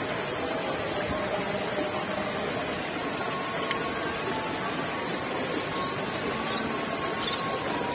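Steady rush of a shallow stream flowing over rocks, with a few faint high chirps near the end.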